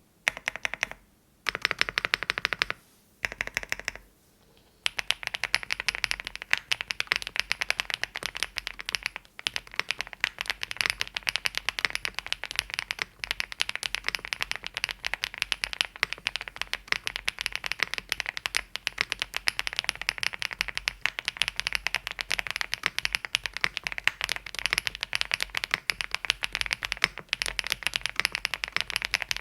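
Typing on a WOB Rainy75 mechanical keyboard with HMX Violet linear switches on a polycarbonate plate. Three short runs of keystrokes in the first four seconds, then fast, continuous typing.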